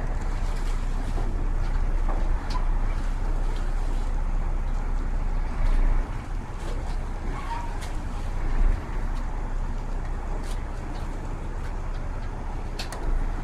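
Launch boat's engine running with a steady low hum, with a few light clicks scattered through.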